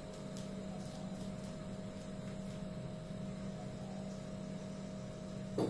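Steady electrical hum from a household appliance, holding two constant tones, one low and one higher. Near the end a short knock sounds and the higher tone cuts off.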